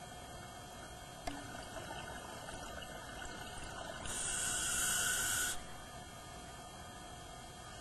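Scuba diver breathing through a regulator underwater: one hiss of about a second and a half, about four seconds in, over steady underwater background noise, with a short click about a second in.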